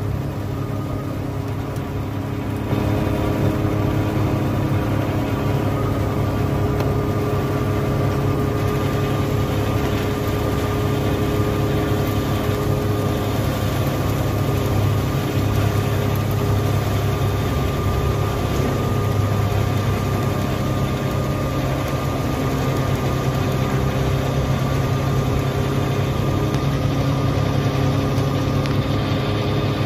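Tractor engine running steadily under load, stepping up in level about three seconds in.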